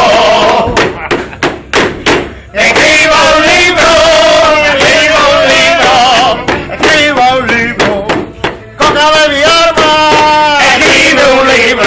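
A man's voice singing in flamenco style: long, wavering, drawn-out notes in phrases. Short sharp hits fall in the pauses between phrases.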